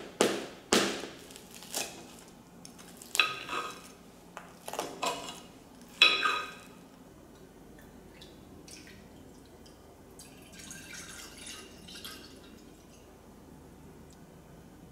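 Sharp clinks with a short ring, about eight of them over the first seven seconds. After that, milk pours faintly into a stainless steel saucepan.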